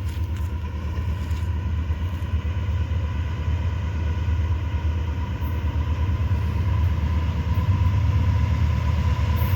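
Freight train approaching and passing close by, a deep steady diesel-locomotive rumble that grows gradually louder.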